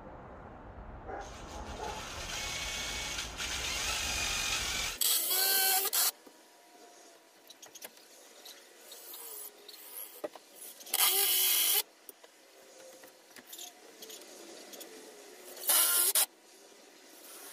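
Cordless drill driving screws into a wooden post in three loud bursts of about a second each, after a longer, quieter run that builds over the first few seconds.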